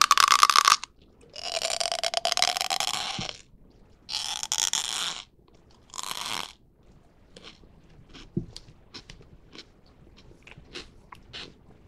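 Crunching as a large freeze-dried marshmallow is bitten and chewed close to the microphone: four loud crunches in the first six or so seconds, then fainter crackling as the pieces are chewed. The speaker calls it a very peculiar sound.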